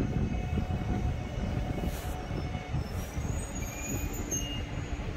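A KTX-EUM high-speed train approaching along the line: a steady low rumble, with faint high squeals of wheels on the rails from about halfway through.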